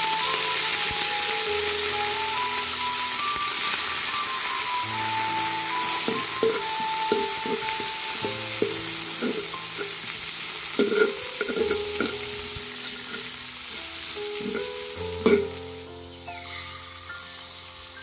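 Oil sizzling in a large wok as curry leaves and onion are stir-fried, with scrapes and knocks of the spatula against the pan. The sizzle drops away near the end.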